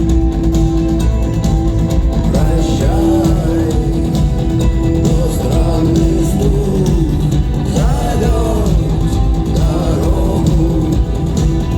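Rock band playing live at a concert, with singing over a steady, loud band and heavy bass.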